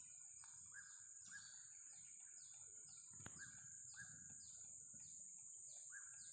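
Faint plantation ambience: a steady high insect drone with short chirps repeating about twice a second.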